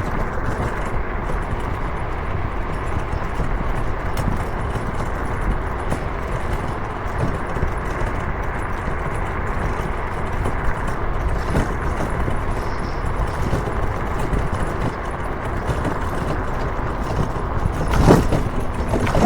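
Steady rumbling travel noise of wind and road, with a single brief knock about 18 seconds in.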